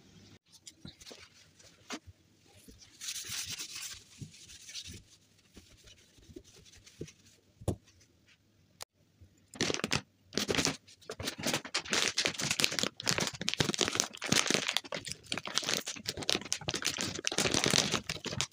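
Plastic bag of cat litter crinkling loudly and being torn open, from about halfway in, after scattered light clicks and rustles.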